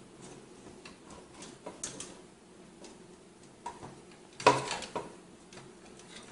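Small clicks and taps of fingers handling small parts against a metal graphics-card heatsink, with a louder clatter of clicks about four and a half seconds in.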